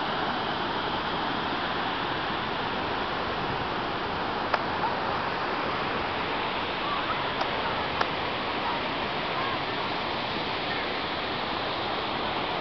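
Waterfall rushing, a steady even roar of falling water, with a few sharp clicks about halfway through.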